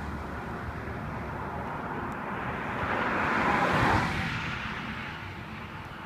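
A vehicle driving past, its noise swelling to a peak about four seconds in and then fading away.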